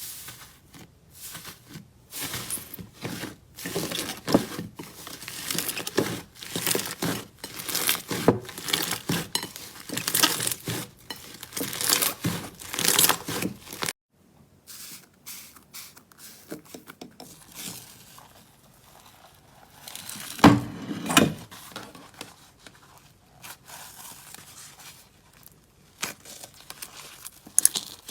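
Slime being squeezed and pulled by hand, making a rapid run of sticky crackles and pops. About halfway it cuts off abruptly, then a quieter run of crackles follows, with one louder pop a little past the middle.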